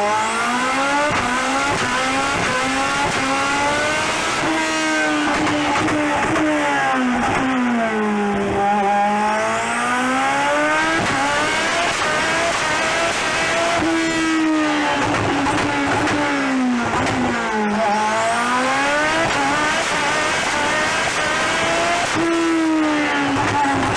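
Race car engine at high revs, its pitch climbing and falling every few seconds as the car accelerates and slows, with deep low dips about a third and three quarters of the way through.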